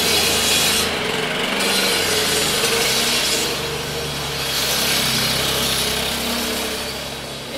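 Repair-work power tool running steadily, a harsh sawing noise over a low hum, with the hiss easing briefly a few times.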